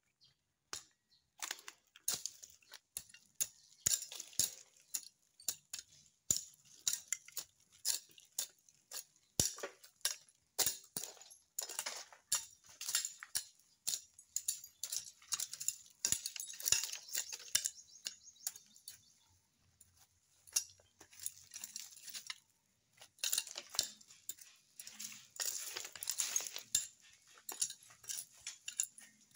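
Machete blade scraping and digging at stony soil, an irregular run of gritty metal scrapes and clinks.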